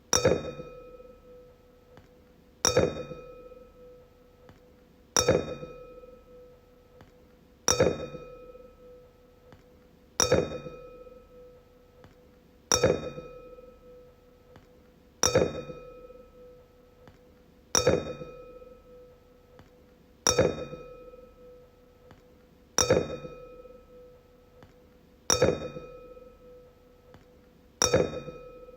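Wine glass struck about every two and a half seconds, twelve times: each tap a sharp clink that rings on at one clear pitch with fainter higher overtones and dies away.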